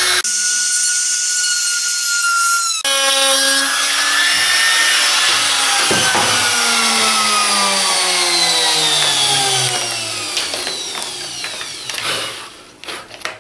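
Trim router running at full speed, then switched off about three seconds in; its motor winds down in a long falling whine that fades away near the end.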